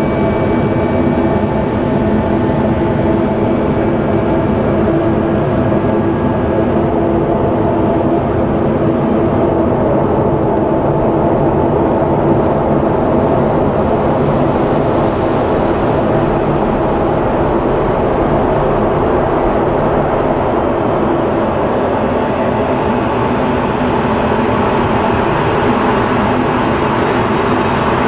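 Steady cockpit noise inside an F-16 fighter in aerobatic flight: the F100 turbofan running and air rushing over the canopy, with a high hiss that grows stronger about halfway through.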